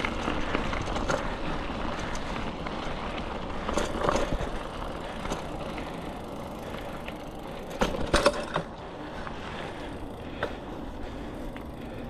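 Mountain bike on a dirt trail: steady tyre noise with the frame and chain rattling, and a quick cluster of louder knocks about eight seconds in.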